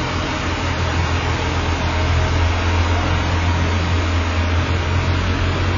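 Ice resurfacer running as it drives across the rink, a steady low engine hum over a wash of noise.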